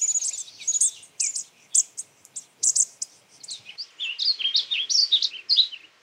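High, thin chip notes of bushtits, then, a little past halfway, a warbling vireo's run-on warbled song of quick slurred notes.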